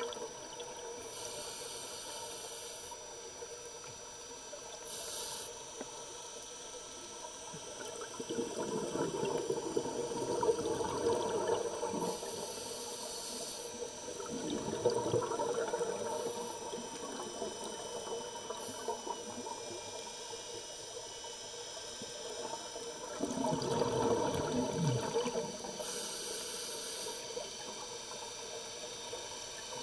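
Scuba diver breathing through a regulator, heard underwater: exhaled bubbles gurgle out in three bursts over a steady underwater hiss.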